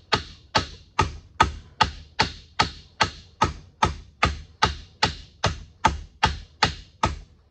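Soft-face copper hammer striking a lathe's drive gear in a steady series of sharp blows, about two and a half a second, each with a short ring, driving the gear off the spindle as it starts to move.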